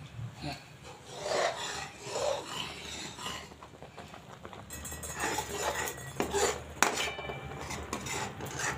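Long metal spatula scraping and stirring through thick, reducing milk in a large metal pan, a rasping scrape in irregular strokes. Light clinks of metal on metal come in the second half.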